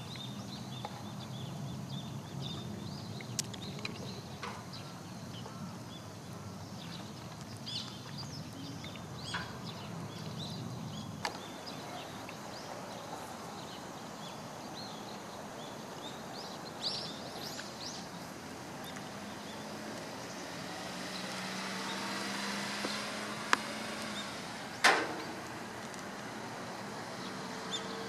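Outdoor ambience with scattered short, high bird calls. A rushing noise swells in the last third, and a few sharp clicks sound, the loudest near the end.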